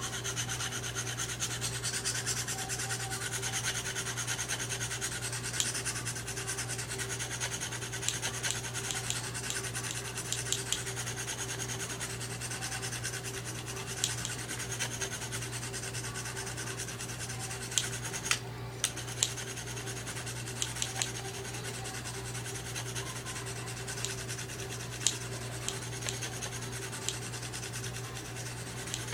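Steel knife blade being stroked rapidly and continuously along a fine 600-grit sharpening stone, a fine scraping rasp with a few sharp ticks, which is the sound of sharpening the recurve edge of a Smith & Wesson Black Ops knife.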